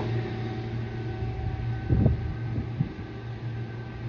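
Diesel engine of a Matisa track maintenance machine running as the machine travels away along the line, its low drone slowly fading. A short thump about two seconds in.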